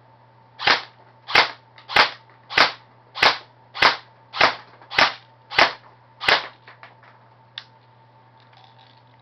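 DPMS Panther Arms M4-S airsoft carbine firing ten shots on semi-auto, one about every 0.6 s, the last a little past halfway, followed by a few faint clicks.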